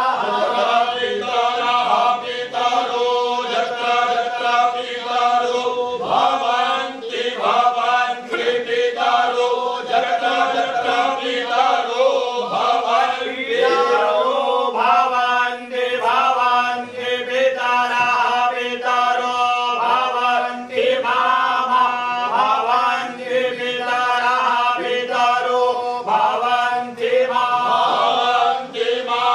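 A group of men chanting Vedic verses in unison, the recitation moving between a few set pitches with short breaks for breath.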